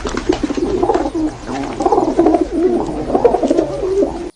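Doves cooing, with calls running on one over another without a break, cutting off suddenly near the end.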